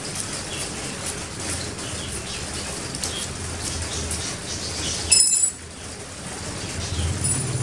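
Ferrocerium fire-starter rod scraped with a steel striker in quick strokes, several a second, throwing sparks onto cotton wool to light it. About five seconds in comes a brief, loud, high ringing clink, and near the end a vehicle engine rises.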